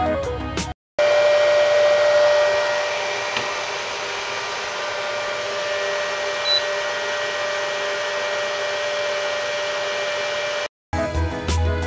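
Steady hiss with a faint steady tone running through it, received from an FM transmitter on a Denon TU-215RD tuner. It starts abruptly after a brief silence under a second in, is loudest for its first couple of seconds, then holds level and cuts off just before music resumes near the end.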